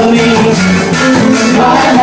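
Live ska band playing loudly.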